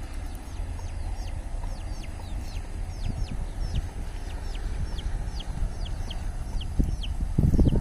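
A bird calling over and over in short, high, falling chirps, about three a second, over a low steady rumble on the microphone. Just before the end a louder low rumbling noise sets in.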